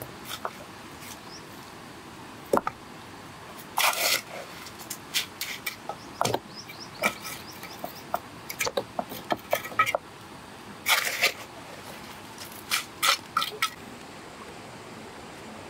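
Steel mason's trowel scraping and tapping on wet mortar and stone while stones are set in a mortared wall: irregular clicks and short scrapes, with two longer rasping scrapes about 4 and 11 seconds in.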